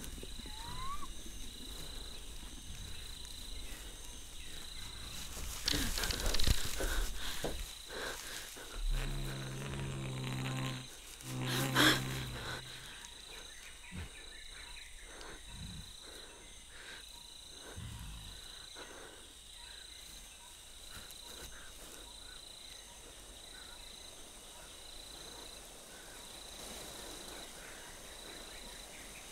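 Jungle soundscape of insects chirping in a steady pulse, with a bird's rising chirp about a second in. Around six seconds in comes a loud noisy crash, then from about nine to twelve seconds a deep growl from the giant gorilla, ending in a sharp loud hit, before the insect ambience settles back.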